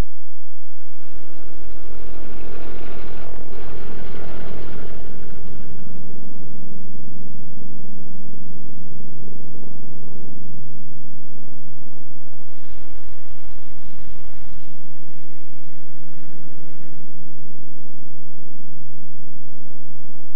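Republic P-47 Thunderbolt fighters' radial engines at takeoff power: a steady, loud drone with a rushing propeller noise that swells and fades twice as planes roll past and lift off.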